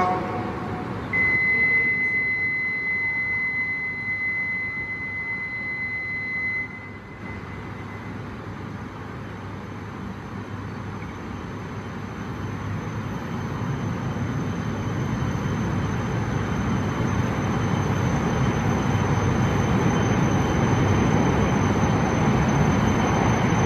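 A steady high electronic signal tone for about five seconds, then a train's rumbling running noise building steadily louder on a station platform.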